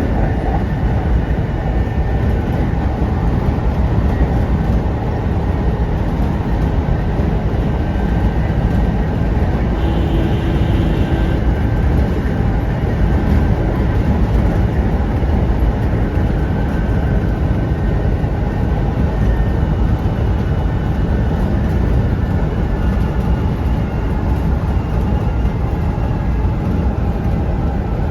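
Kintetsu 1810 series electric train running steadily, its wheels, rails and traction equipment heard from on board. A short steady tone sounds about ten seconds in.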